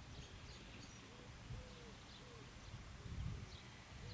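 Faint pigeon cooing: a run of short, low, arched coos about two-thirds of a second apart, over a low background rumble.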